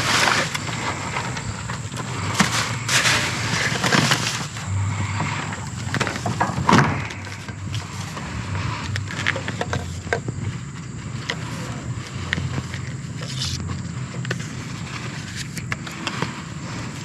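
Rustling and clattering of discarded items being handled and moved, with sharp knocks that are densest in the first half, over a steady low hum.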